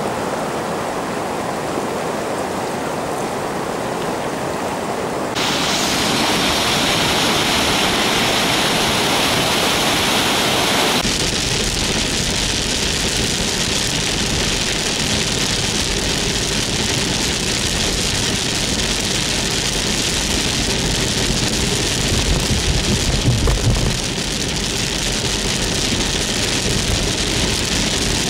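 Rain and running rainwater: a steady rushing noise that changes abruptly twice in the first half, first growing brighter, then lower and heavier. A louder low rumble comes about two-thirds of the way through.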